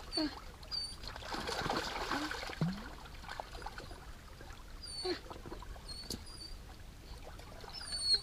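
Dog whining in short, separate cries at the water's edge, while a hooked bass splashes in the shallows as it is fought to the bank.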